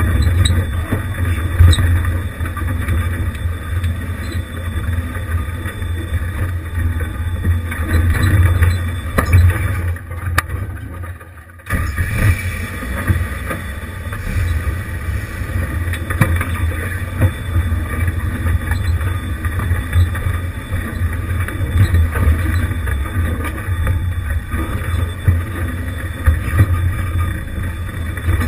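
1988 Jeep Wrangler YJ crawling over a rocky trail: a steady low engine and drivetrain rumble with scattered knocks and rattles as the tires climb over loose rock. Near the middle the rumble drops away for about two seconds, then comes back suddenly.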